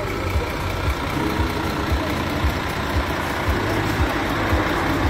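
Heavy diesel truck engine idling steadily: a continuous low rumble with soft low beats about twice a second.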